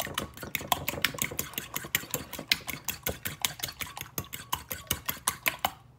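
Metal fork beating two raw eggs in a ceramic bowl, clicking against the bowl in a fast, even rhythm several times a second; the beating stops near the end.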